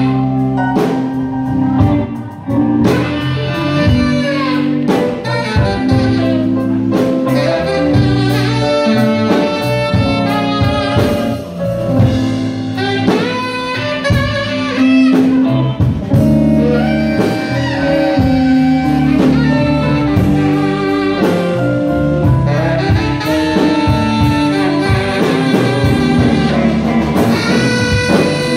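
Live blues band playing an instrumental passage, with a saxophone taking the lead over electric guitar, bass, keyboard and drums.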